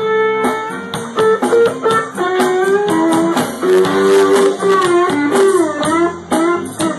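Electric guitar played slide-style with a shot glass, joined by an amplified blues harmonica in a live blues tune. Notes glide and bend up and down between plucked attacks.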